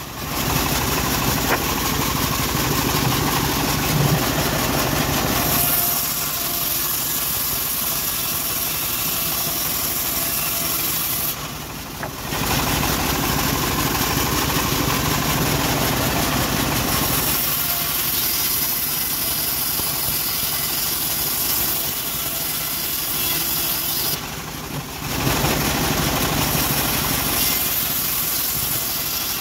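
Homemade bandsaw mill running steadily as it rips teak into rafter boards. The sound grows louder in long passes that come round about every twelve seconds, with a brief drop in level between passes.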